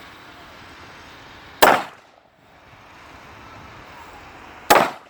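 Two rifle shots from a .223 rifle, about three seconds apart, each a sharp crack with a brief echo trailing off.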